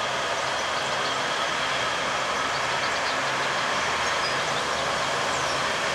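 Diesel-hydraulic shunting locomotive (Romanian class 82) running as it moves away along the station track: a steady engine drone with a low hum.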